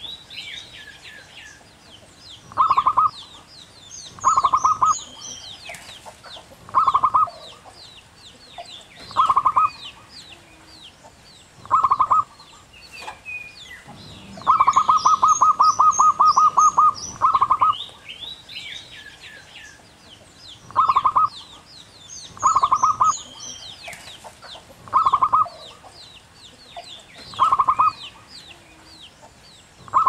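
Zebra dove calling: short bursts of rapid, staccato cooing notes every two seconds or so, with one longer run of about three seconds midway. Faint high chirping of other birds runs underneath.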